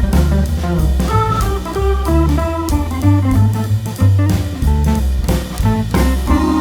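Background music: an upbeat jazzy instrumental with bass, drum kit and guitar or organ, with a steady beat.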